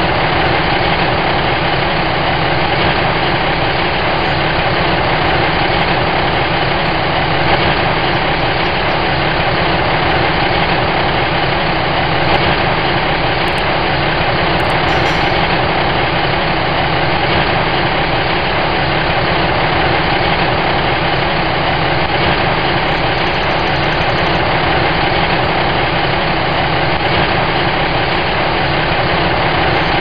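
A truck engine idling: a steady, unchanging engine rumble that holds at the same level throughout.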